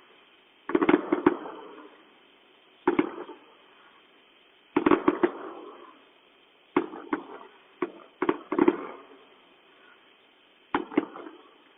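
Fireworks going off: sharp bangs at irregular intervals, some single and some in quick clusters of two to four, each trailing off in an echo.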